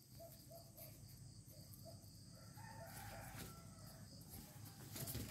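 A rooster crowing faintly, once, about halfway through, over a quiet background.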